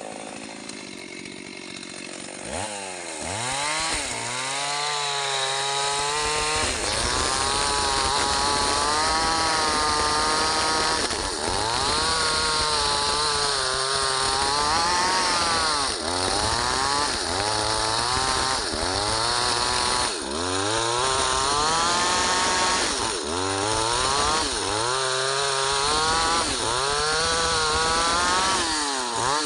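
STIHL MS 381 two-stroke chainsaw cutting mahogany: it revs up to full speed about two and a half seconds in, then its pitch dips and recovers again and again, every second or two, as the chain bites into the wood under load. Near the end the engine speed drops away.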